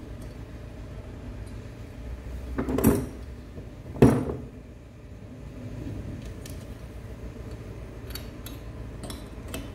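Small metal parts and tools clinking while nuts are being fitted on a moped engine: two loud metallic clanks about three and four seconds in, then a few light clicks.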